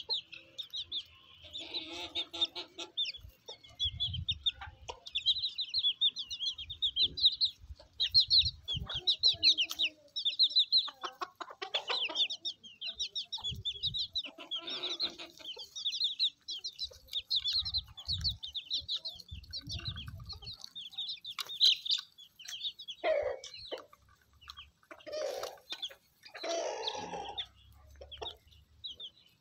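Young chicks peeping without pause in rapid, high chirps, with chickens clucking now and then over them in a few louder, lower calls.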